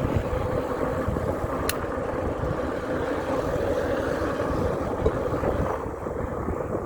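Riding noise from a moving e-bike: wind rumbling on the microphone and road noise, with a steady hum, and a single sharp click about two seconds in.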